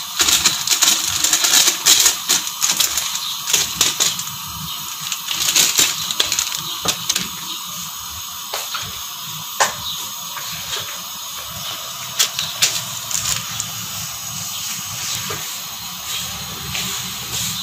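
Steady hissing with many small scattered crackles and clicks from a steel pot of layered rice and chicken gravy biryani steaming on the stove.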